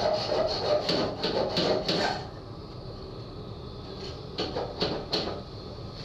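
Rhythmic hand scraping or rubbing strokes, about three a second, which stop about two seconds in. A few sharp knocks follow, over a steady low machinery hum.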